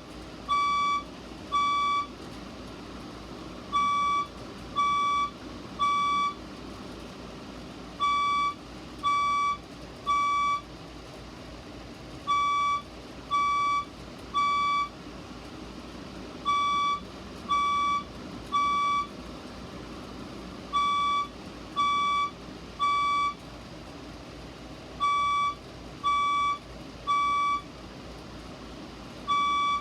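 Fire alarm speaker strobe sounding its evacuation tone in the temporal-three pattern: three half-second beeps, a pause of about two seconds, then three more, repeating steadily. This is the standard fire-evacuation signal.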